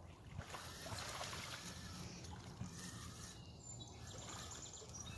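Faint riverside ambience: river water trickling and flowing, low and steady.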